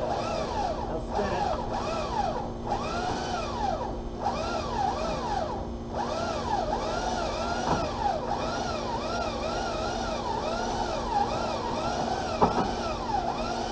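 Hoisting rope squealing over and over as the boxed AC condenser is pulled up hand over hand, each pull giving a squeal that rises and falls in pitch, about one or two a second. A steady low hum runs underneath.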